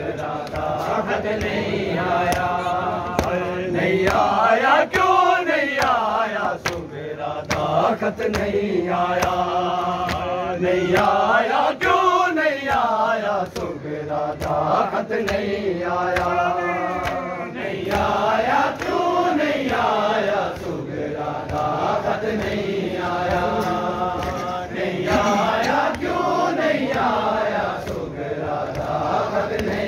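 Men's voices chanting a noha (mourning chant) in long, wavering held lines, the phrase coming round again every several seconds, with many sharp slaps throughout that are typical of matam chest-beating.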